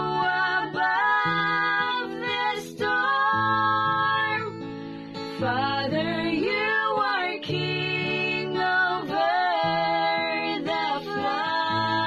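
A slow worship song: a solo voice singing long held notes over acoustic guitar.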